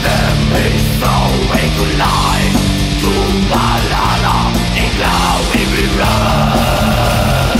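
Heavy metal band playing: distorted electric guitars over fast, even drumming, with no vocals.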